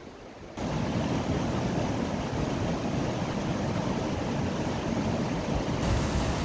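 Fast mountain stream rushing and splashing over boulders in whitewater rapids, a steady rush that comes in suddenly loud about half a second in.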